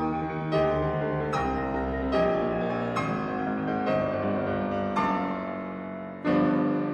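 Background music: a solo piano playing slow notes and chords, one struck about every second and left to fade, with a louder chord near the end.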